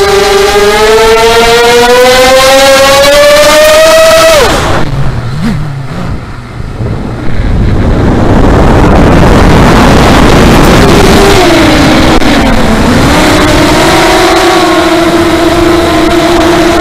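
FPV racing quadcopter's motors whining, heard from the onboard camera with heavy wind rush. The pitch climbs steadily as the throttle comes up, then falls away sharply about four seconds in as the throttle is cut. About three seconds later it comes back loud, dips once and then holds a steady whine.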